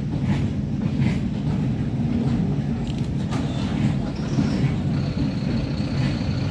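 Goods train rolling past: flat wagons loaded with steel rods and open box wagons, giving a steady low rumble of wheels on track with a few faint knocks.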